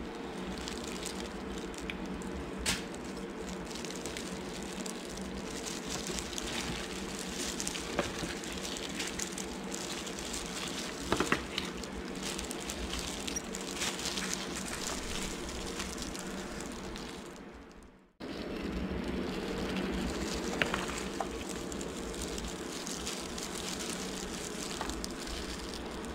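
Plastic-gloved hands shredding pulled pork in a disposable aluminium foil pan: wet tearing and crackling of the meat with crinkling of gloves and foil, over a steady low hum. The sound drops out briefly about two-thirds of the way through.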